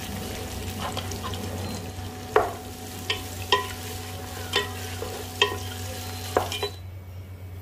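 Sliced onions frying in hot oil with whole spices, sizzling steadily, while a wooden spatula stirs them and knocks against the pot about eight times. The sizzle cuts off suddenly near the end.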